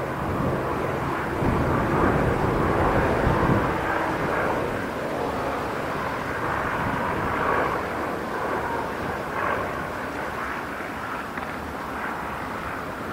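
Kawasaki T-4 jet trainers' turbofan engines: a steady jet rumble and hiss that swells from about one to four seconds in, then slowly fades.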